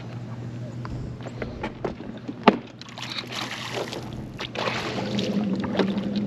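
Water sloshing around a small fishing boat, with scattered clicks and knocks, the sharpest about two and a half seconds in, over a low steady hum, while a hooked redfish is being played.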